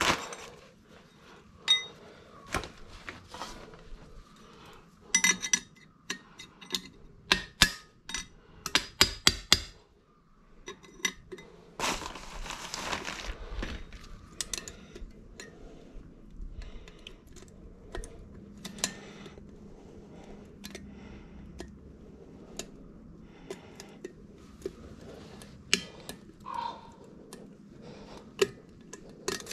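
Metal tools and parts clinking and knocking, with a fast run of sharp clicks in the first third and a hiss lasting about two seconds around the middle.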